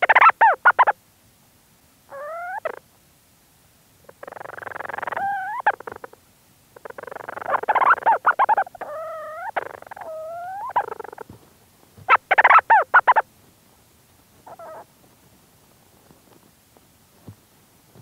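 Leach's storm petrel calling close up from inside its burrow. Bursts of rapid chattering pulses near the start and again about twelve seconds in alternate with wavering notes that glide up and down, and a short faint call comes near the end.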